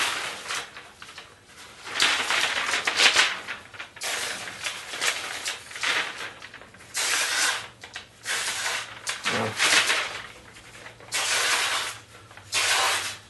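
Carbon-steel knife blade slicing through newspaper, a run of about seven rasping cuts with paper rustling between them. The edge still cuts cleanly after edge-abuse testing.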